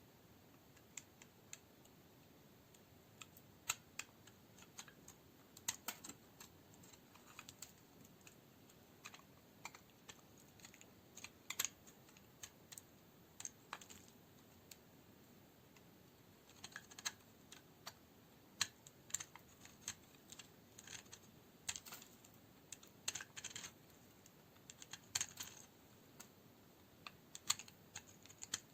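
A knife cutting dry coniferous soap into cubes: crisp, irregular clicks and crackles as the blade breaks through the dry soap, some single and some in short crunchy clusters.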